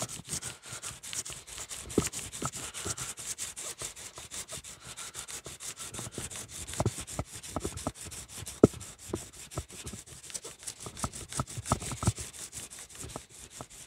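800-grit wet sandpaper on a flat micarta block rubbed back and forth in quick, even strokes over a steel knife blade lubricated with WD-40. This is hand-sanding to clean up an electrochemically etched marking.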